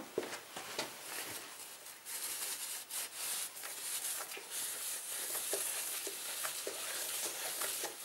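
Cloth rag wet with brake cleaner rubbing over a drilled steel motorcycle brake disc, a scratchy scrubbing hiss with small clicks, wiping grease off the disc.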